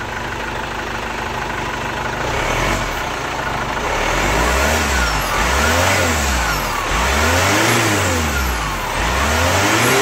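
Chevrolet Captiva turbodiesel engine idling, then revved several times from about two and a half seconds in. Each rev rises and falls in pitch. It has just been repaired for a growling turbo, and runs without that growl.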